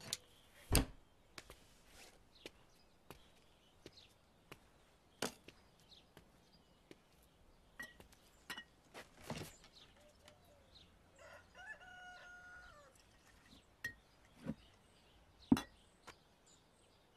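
Scattered knocks and clicks, the loudest about a second in and another near the end. Around the middle a rooster crows once, a rising call held for about a second and a half.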